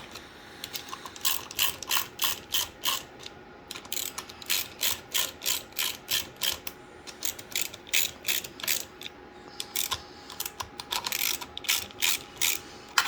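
Hand ratchet clicking in quick runs of about four clicks a second, with short pauses between runs, as screws are backed out.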